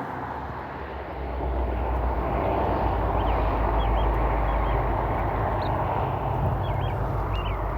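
Diesel locomotive engines rumbling steadily, the low rumble growing stronger about a second in. A bird chirps short repeated calls over it in the second half.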